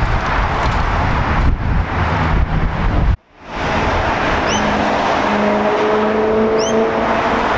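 Cars driving past on a city road, their engines and tyres making a dense, steady noise. About three seconds in the sound cuts out abruptly. It then returns as a steady engine note, rising slowly in pitch as a car drives by.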